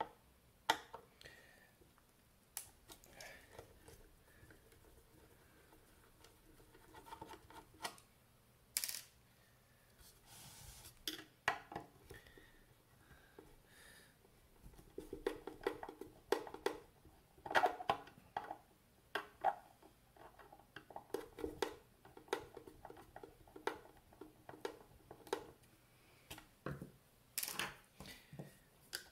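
Screwdriver working small screws out of the metal case of an avionics control display unit, with irregular metallic clicks, scrapes and clinks of the tool, screws and panel. The clicks come thicker and faster through the middle of the stretch.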